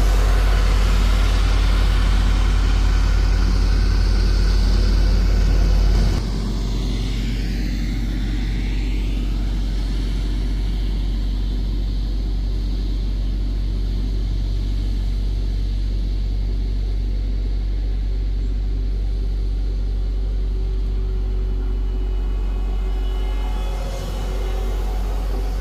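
Heavy road-construction machinery running: a steady, deep engine rumble that drops abruptly in level about six seconds in, then continues evenly. A brief sweeping sound passes over it a few seconds after the drop.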